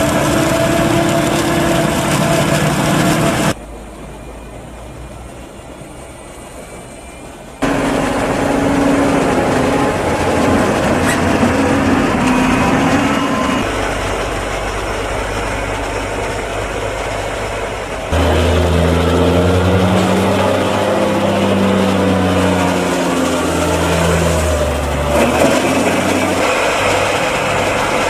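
Diesel engines of heavy farm machinery at work during a maize silage harvest, heard in several abrupt cuts. A quieter stretch runs from about four to eight seconds in.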